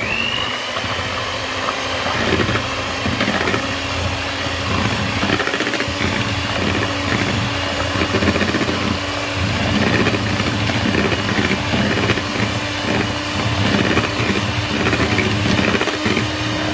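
Electric hand mixer running at speed, its twin beaters whisking raw eggs in a bowl. The motor whirs up to speed right at the start, then holds a steady whine.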